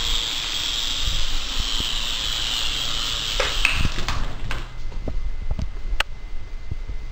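Small toy RC helicopter's electric motor and rotors whirring steadily. About three and a half seconds in a few knocks come as it goes down, the whir wavers and stops about a second later, and scattered light taps follow.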